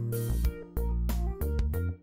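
Background music with a steady beat over held bass notes.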